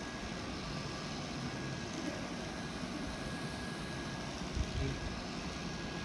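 Steady low background rumble with a faint, steady high whine. A soft thump comes about four and a half seconds in.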